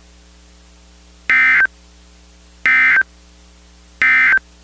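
EAS SAME digital data bursts: three short, harsh warbling blips of tones sent about a second and a half apart, the End of Message code that closes an Emergency Alert System broadcast. A low steady hum runs underneath.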